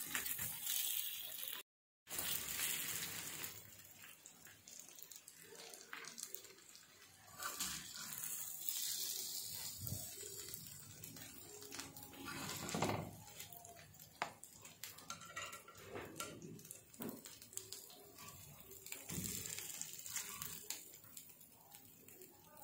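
Chicken pieces sizzling on a hot flat iron griddle (tawa) with the flame off, with scattered scrapes and clicks of a metal spatula against the griddle and plate as the pieces are lifted off.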